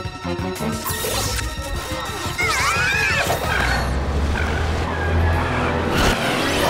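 Cartoon action score with sound effects: a warbling tone that bends up and down a few seconds in, then a low cartoon car engine rumble and a sharp hit about six seconds in.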